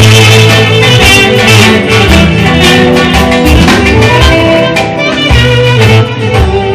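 Live Greek folk band music, loud and amplified: a clarinet plays a sliding, ornamented melody over strummed guitar and a steady bass.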